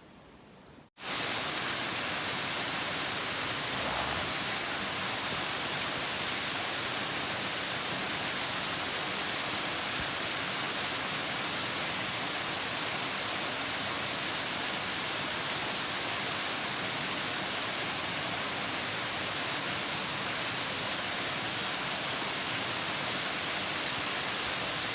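Steady rushing of water from a small spring-fed waterfall, starting abruptly about a second in.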